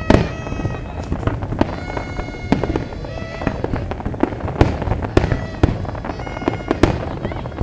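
Fireworks going off in an irregular run of sharp bangs, more than a dozen, with held musical notes sounding between them.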